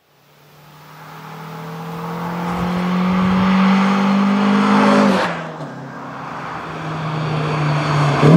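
First-generation Mazda MX-5's four-cylinder engine drives toward the microphone, getting steadily louder, then drops in pitch as it passes about five seconds in. A second car, a Lotus Elan with its Ford-block, Lotus-head four-cylinder, then builds up and goes by loudly near the end.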